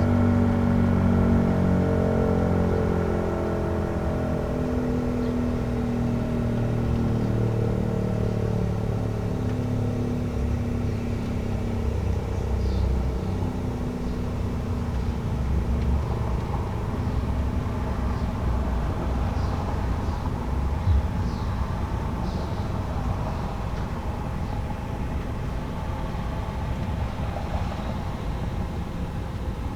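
ACA P-15 tornado siren winding down after its Alert test: a low tone slowly falls in pitch and fades over the first dozen seconds, over a steady low rumble. There is a single short knock about two-thirds of the way through.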